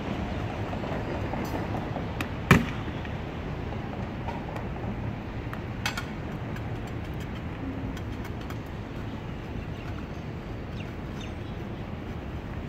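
A mallet cracks the salt crust of a salt-baked dish with one sharp knock about two and a half seconds in, and a lighter knock follows near six seconds. A steady outdoor hum runs underneath.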